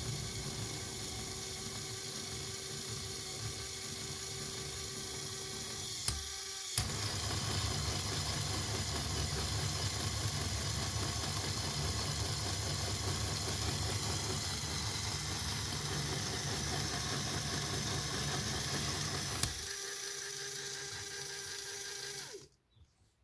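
Lego Technic electric motor running steadily, driving the front axle's gears and differential with a whirring gear noise. Two clicks come about six seconds in, after which it runs louder; it shifts again near the end and then cuts off suddenly.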